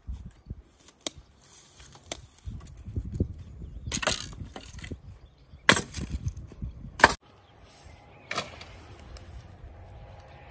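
Dry branches and twigs snapping and rustling as they are handled and broken by hand, with a few sharp cracks, the loudest about four, six and seven seconds in.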